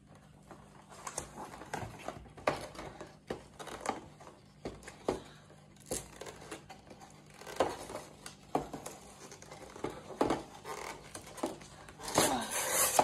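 A Pokémon trading card box's cardboard and wrapping being handled and torn open by hand: scattered crinkles, taps and small tearing sounds, with a louder burst of rustling near the end.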